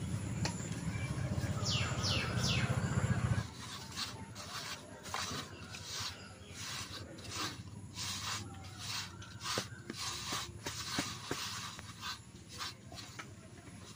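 Fingers rolling and pressing floured dough balls on a plate: soft, irregular rubbing and tapping sounds. They come thickly from about four seconds in. Before that a low steady noise is heard, which stops about three and a half seconds in.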